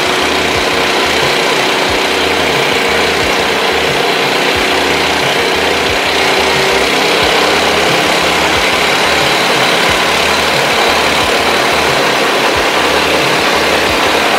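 Small petrol engine running steadily, driving a flour-grinding mill, with a loud, even mix of engine pulse and mill noise. The engine is a 7.5 HP Matsumoto MGX210 and the mill a Mahkota MDM 9-21 for rice and corn.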